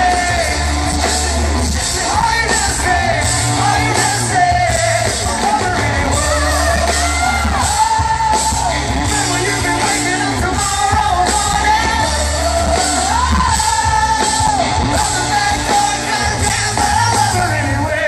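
Live rock band playing a song with lead vocals: a sung melody over drums, electric guitar and a steady bass, loud and captured from within the audience.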